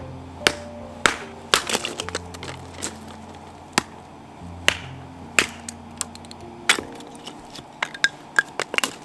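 Firewood cracking and snapping: a dozen or more sharp, irregular cracks of varying loudness.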